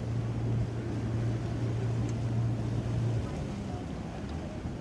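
Boat engine running with a steady low drone that drops lower in pitch a little after three seconds in, over wind and water noise.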